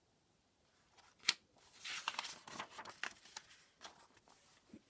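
A picture book's paper page being turned by hand: one sharp flick about a second in, then a couple of seconds of paper rustling as the page is pressed flat.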